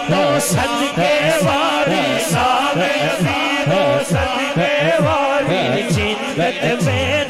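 A male naat reciter singing a Punjabi devotional naat through a microphone and PA system, in a wavering, ornamented melody. Under the voice runs a low pulsing beat about twice a second.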